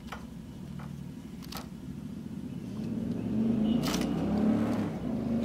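A motorcycle engine on the road, coming nearer and growing louder over the last two seconds or so. It plays over the steady low hum of an air compressor, with a few sharp clicks.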